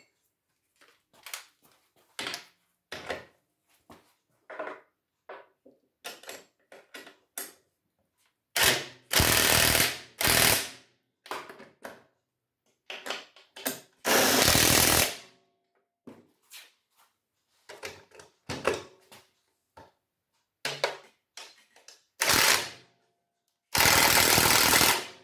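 Cordless impact driver in short hammering runs, tightening the bolts that hold a lawn mower engine to the deck: three runs close together about a third of the way in, one in the middle and one near the end. Between them come light clicks and knocks of bolts, nuts and the tool being handled.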